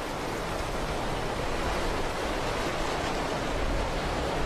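Steady rush of a swollen river churning through rapids.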